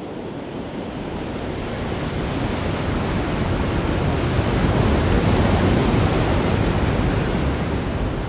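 Large Atlantic waves breaking on the shore in a strong wind, the surf swelling to its loudest about midway and then easing off.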